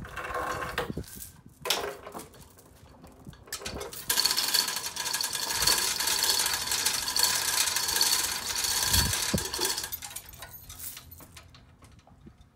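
Manual chain hoist worked by its hand chain, lowering the hung engine: the chain runs through the hoist with rapid ratchet clicking and rattle from about four seconds in until about ten seconds in. There are shorter chain clinks near the start.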